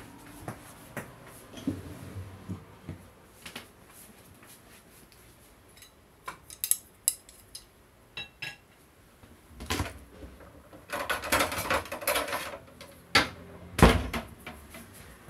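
Light footsteps on a wooden floor, then clinks and clatter of dishes and utensils being handled at a stainless steel kitchen counter, ending in a couple of loud knocks.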